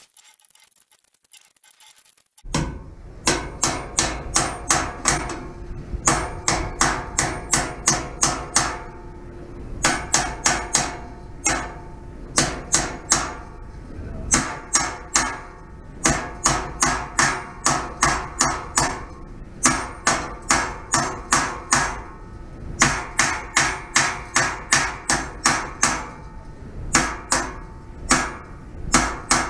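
Hand-forged blacksmith's hammer striking steel, hammering a steel part into a bend: bursts of quick ringing blows, about three a second, with short pauses between bursts. The hammering starts a couple of seconds in.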